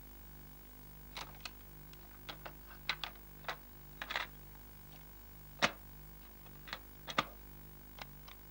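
Hand-operated controls of a portable stereo cassette player clicking and clacking: about fifteen short, irregular clicks, the loudest a little past the middle, over a low steady hum.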